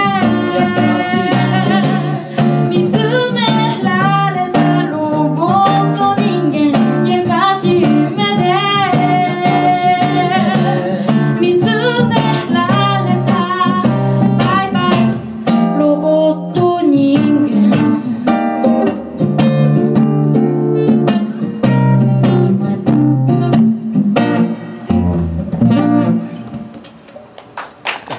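A woman singing live with acoustic guitar accompaniment. The song ends near the end, its last chord dying away.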